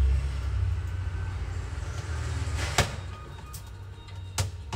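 Low rumble with two sharp clicks about a second and a half apart, from the laptop display panel's metal hinges being handled.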